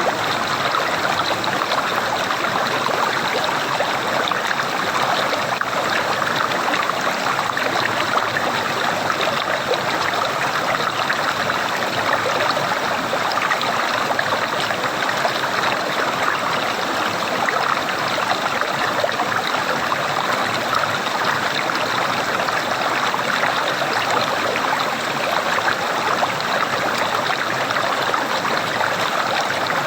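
Flowing water gurgling steadily, an unbroken rushing and burbling with no pauses.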